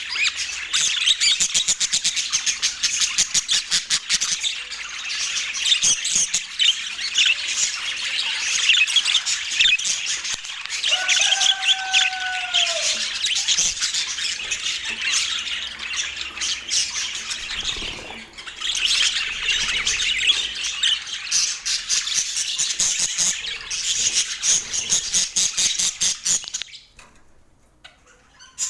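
Budgerigars chattering and warbling in fast, overlapping calls, with one lower, falling call about eleven seconds in. The chatter stops briefly near the end.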